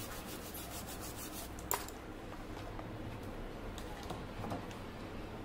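A small cleaning tool is scrubbed rapidly back and forth across a printed circuit board, about six strokes a second, for the first second and a half. A sharp knock follows, then light handling ticks.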